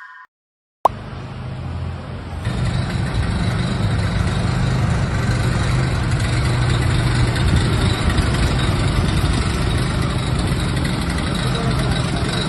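Heavy truck engine running steadily at idle, with a low hum and a slight step up in level about two seconds in.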